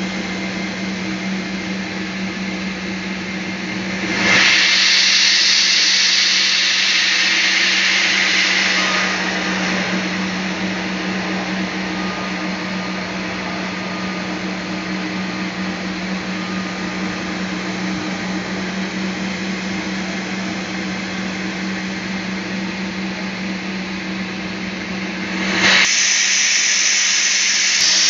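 Sawmill bandsaw running with a steady hum while sawing a teak log. A louder, hissier cutting noise sets in about four seconds in, eases off after about five seconds, and rises again near the end.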